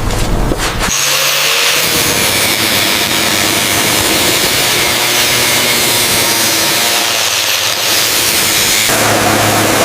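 Rapid rubbing strokes about a second in give way to a steady power tool running, a loud even noise. Near the end the tool's sound shifts to a lower hum.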